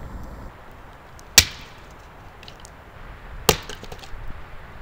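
Fiskars Norden N12 splitting axe chopping into firewood: two sharp strikes about two seconds apart, the first the louder, with a brief ring after it.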